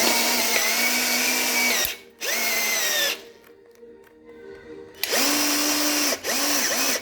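Electric drill driving a drill-mounted metal-shear cutting adapter, run in several trigger bursts: three longer runs, then a few quick blips near the end. The motor whine sags at the start of runs as the cutter is loaded by the steel sheet; the adapter is jamming at a raised rib of the corrugated steel.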